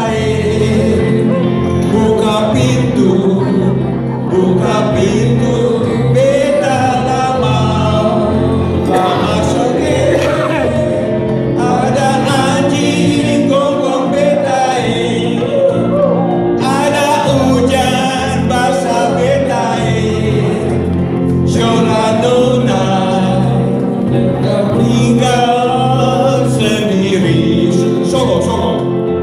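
Live band music: men singing into microphones over electric and acoustic guitars, playing on without a break.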